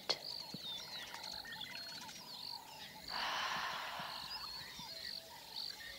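Soft background ambience of small birds chirping and warbling in short repeated calls, with a gentle breathy rush of noise for about two seconds from about three seconds in.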